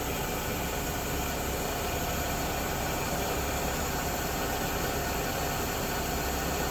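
Milling machine running steadily, a constant motor and spindle hum with no change in pitch or level.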